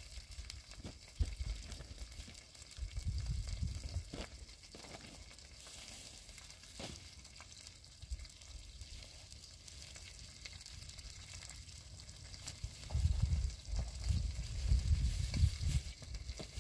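Wind gusting on the microphone, a low rumble that surges briefly about three seconds in and again more strongly near the end, over a steady faint crackling hiss with a few light clicks.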